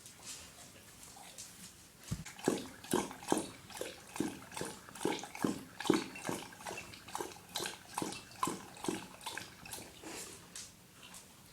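Dog lapping water from a bowl: a steady rhythm of wet laps, about two or three a second, louder from about two seconds in and fading near the end.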